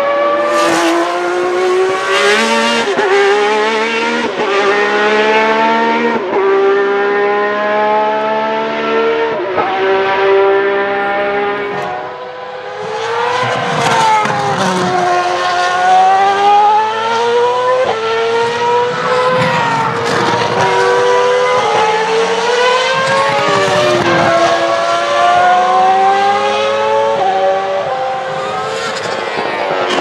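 Ferrari Formula One car engines revving very high: the pitch climbs and drops sharply at each upshift as a car pulls away. After a short lull the pitch swings down and back up as cars brake into and accelerate out of corners.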